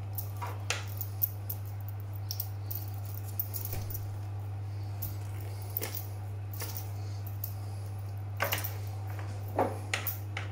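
Soft handling noises of butcher's twine being tied around a bacon-wrapped turkey joint: scattered light clicks and rustles, with a few sharper ones near the end, over a steady low hum.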